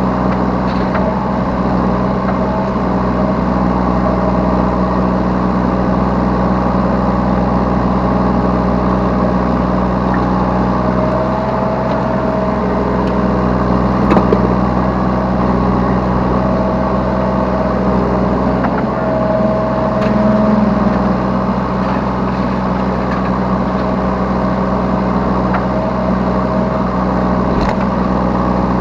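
Yanmar B3 Sigma mini excavator's diesel engine running steadily under work, heard from the operator's seat, with a whine that comes and goes several times as the machine is worked and a few short knocks.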